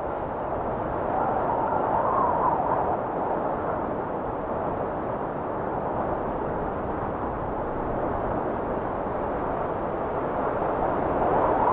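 Recorded wind blowing as a steady rushing noise, fading up over the first second and then swelling in slow gusts, strongest about two seconds in and again near the end.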